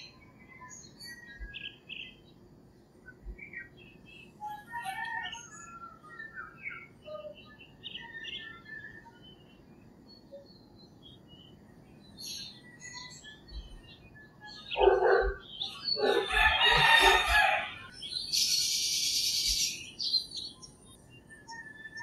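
Small birds chirping on and off, with a rooster crowing loudly once about fifteen seconds in. A high hissing buzz follows for about two seconds.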